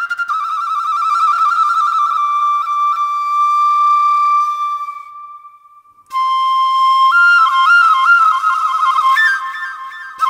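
Vietnamese bamboo flute (sáo trúc) playing a lý folk melody solo: a phrase full of quick trills that settles on a long held note and fades out about five seconds in, then a new trilled phrase starts about a second later.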